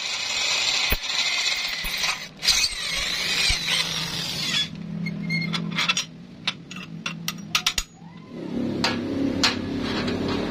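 Steel being worked in a bench vise: a continuous high-pitched gritty grinding noise for about four and a half seconds, then a run of sharp metal clicks and clinks as the parts are handled, with a low hum coming in near the end.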